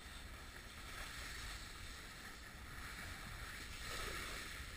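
A snowboard sliding over soft, chopped-up snow, a steady scraping hiss, with a low rumble of wind on the microphone.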